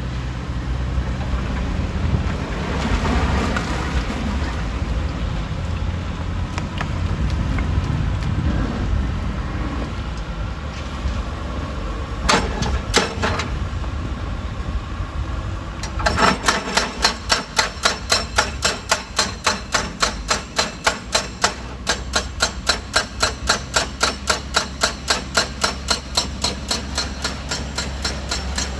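Heavy diesel machinery running with a steady low rumble; about halfway through a rapid, even metallic clatter of about three to four knocks a second starts and keeps going.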